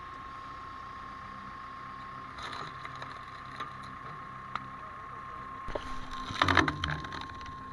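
Tractor-driven hydraulic log splitter running with a steady hum and a constant thin whine, with a few light knocks and a louder crunch of wood giving way about six and a half seconds in.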